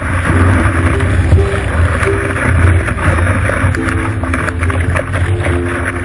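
Surf rushing under a surfboard and wind buffeting the microphone of a board-mounted camera, a loud steady rush with a deep rumble. A faint tune of short notes runs underneath.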